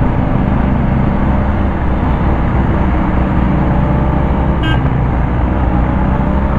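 Motorcycle riding in city traffic: a steady engine and road rumble, with a short horn beep about two-thirds of the way in.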